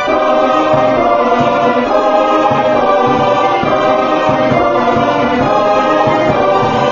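Choral music: a choir singing long held chords.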